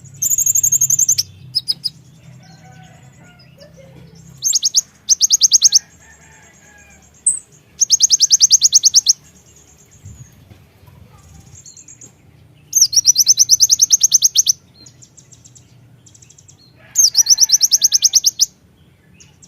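Konin (kolibri ninja) sunbird song: loud bursts of very fast, high, ticking trills, each about a second long, repeated six times with short pauses between, played as a lure to set other caged songbirds singing.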